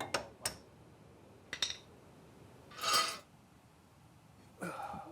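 Light metallic clinks and knocks of spanners and steel parts being handled while the rusted rear leaf spring of an MGB GT is taken off. There are a few sharp clinks in the first two seconds and a short rasping scrape about three seconds in.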